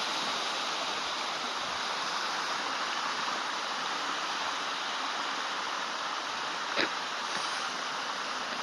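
Stream water flowing and splashing with a steady rushing sound. A single sharp click about seven seconds in.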